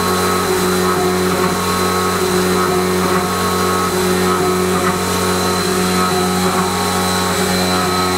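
Haas CNC mill running while machining a muzzle brake, with flood coolant spraying onto the part. It makes a steady machine hum with a thin, constant high whine.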